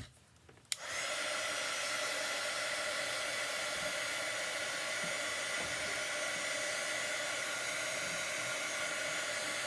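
A hand-held hot-air dryer clicks on just under a second in and then runs steadily with a whirring hum, drying freshly applied chalk paste.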